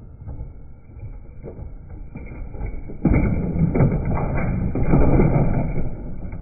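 Model passenger train cars rolling on the track with a low rumble. About three seconds in, a bi-level Superliner car derails and tips over, and a louder clattering with several knocks follows for a few seconds.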